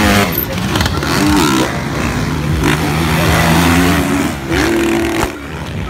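Several MX1-class motocross bikes racing past, their engines revving up and falling back as the riders work the throttle, several engines heard at once.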